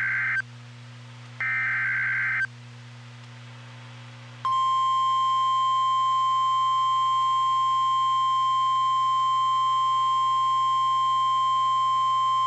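NOAA Weather Radio emergency alert: the end of one Specific Area Message Encoding (SAME) data burst, then a full second one, each a harsh digital screech about a second long. About two seconds later the steady 1050 Hz Weather Radio warning alarm tone starts and holds as one unbroken high tone, the signal that a warning message is about to be read.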